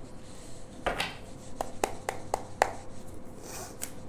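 Hands picking up and handling a deck of tarot cards on a tabletop: a handful of light, sharp taps and clicks, most of them between one and three seconds in.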